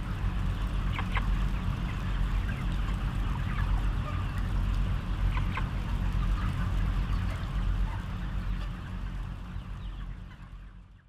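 A crowded flock of broiler chickens calling in short, scattered calls over a steady low hum, fading out near the end.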